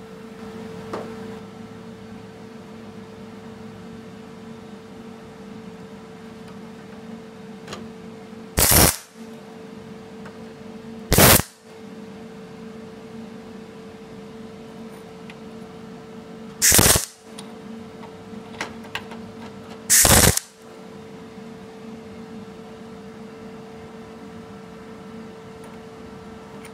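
Welder laying four short tack welds on a replacement steel body panel, each a brief burst a few seconds apart, over a steady background hum.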